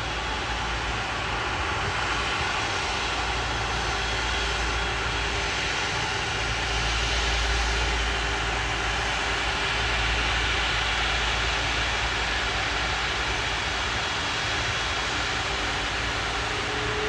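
Steady noise of jet airliner engines, a low rumble under an even hiss, with a faint tone rising near the end.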